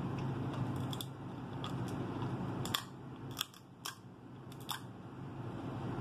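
Crab leg shells cracking and snapping as they are broken open and bitten: a handful of sharp clicks between about one and five seconds in, over a steady low hum.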